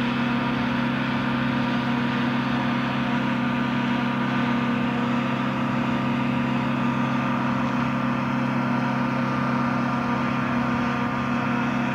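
Generator running at a steady speed: a constant hum at one unchanging pitch.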